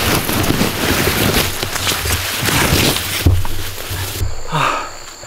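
Loud, rough rushing noise with scattered knocks and one heavy knock about three seconds in. About four seconds in it stops abruptly, leaving faint crickets chirping.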